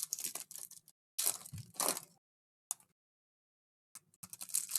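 Crinkling and crackling of trading-card pack wrappers being handled and torn open, in two short bursts, a pause, then more crackling near the end.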